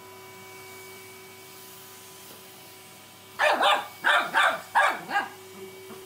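Cockapoo puppy barking about six times in quick succession, starting about three and a half seconds in, over a faint steady hum.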